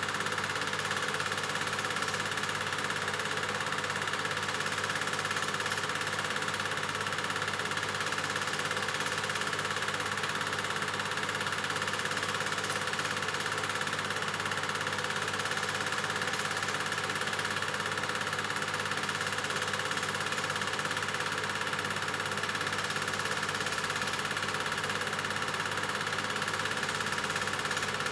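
A 1970 Bolex 18-3 Duo 8 mm film projector running steadily, giving an even mechanical whirring noise.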